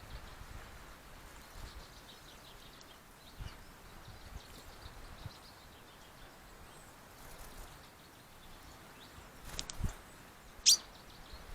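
Quiet outdoor background with faint bird chirps, a few soft thumps, and one sharp click near the end.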